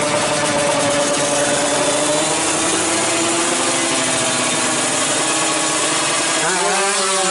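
Drag bike engine running at the start line, held at steady high revs with a buzzing tone. Near the end the pitch starts to swing up and down.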